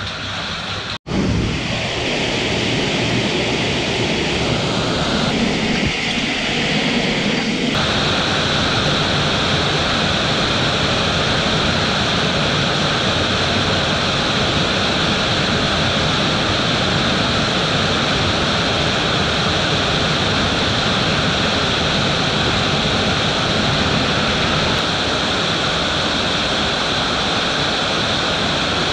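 Underground stream cascading through a cave rift, a steady loud rush of falling water. There is a brief dropout about a second in and a change in tone near eight seconds.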